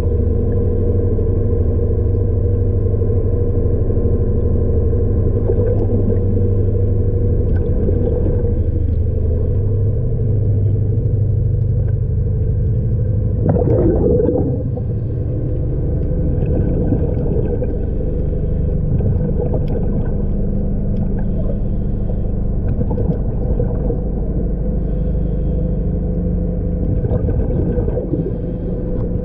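Steady machinery hum heard underwater, made up of several fixed low tones. There is a brief rush of noise about halfway through, after which the lower tones shift slightly.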